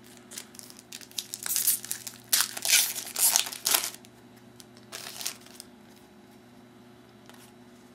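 Foil trading-card pack wrapper crinkling and tearing as the pack is opened by hand, in a dense cluster of crackles over a couple of seconds, then a shorter crinkle about five seconds in.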